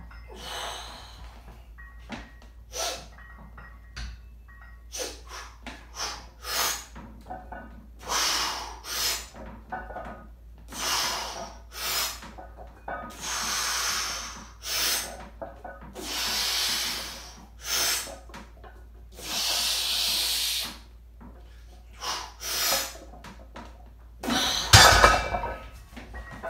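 A man's heavy breathing through a set of bench-press reps: a string of hard, hissing exhalations, each about a second long, with short sharp breaths between. Near the end a loaded barbell with iron plates comes down into the rack with a loud metal clang, the loudest sound.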